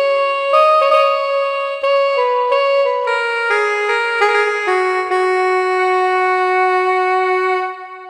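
A melody played one note at a time on a MIDI keyboard set to a wind-instrument tone. Near the end it settles on a long held note that then fades out.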